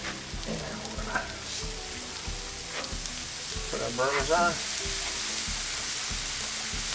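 Food frying on a hot steel flat-top griddle: potatoes in bacon grease and raw burger patties laid on the steel, with a steady sizzle that grows stronger as the patties go down. A brief pitched sound comes about four seconds in.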